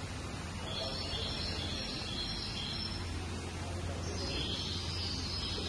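Steady ambient background with a low hum, and faint high chirping in two spells, the second starting about four seconds in.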